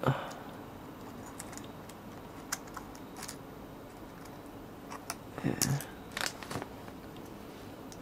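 Scattered faint clicks and ticks of steel tweezers touching the aluminium iPad 2 housing and the small power-button bracket.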